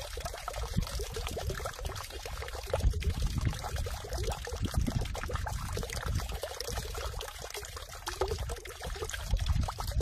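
Water falling into a stone water basin (sugwak, a 'stone heobeok'), splashing and trickling steadily into the pool.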